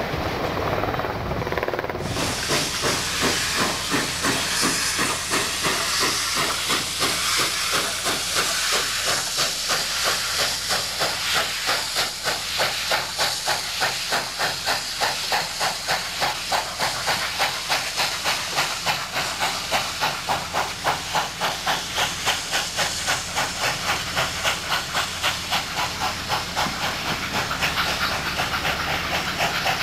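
Pere Marquette 1225, a 2-8-4 Berkshire steam locomotive, passing close, working with a rapid, even chuffing exhaust under a heavy hiss of steam. Its passenger cars roll by near the end while the chuffing goes on.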